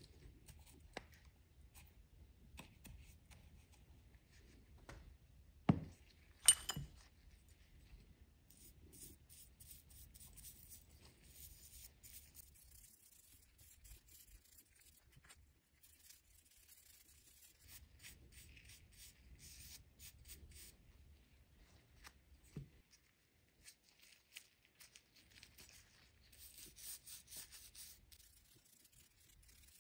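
Bristle paint brush scrubbing liquid rust neutralizer onto rusty steel leaf-spring bushing washers and cup retainers: a faint scratchy rubbing that comes and goes in spells. A couple of sharp clicks about six seconds in are the loudest sounds.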